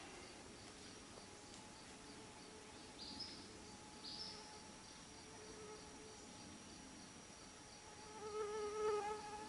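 Woodland insects: a steady high whine with a faint, regularly repeating pulse behind it, and two short rising chirps about three and four seconds in. Near the end a flying insect buzzes close by, wavering in pitch; this is the loudest sound.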